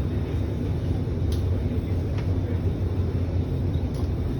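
Steady low hum and rumble inside an Alstom Movia R151 MRT car standing at a station, with a few faint clicks.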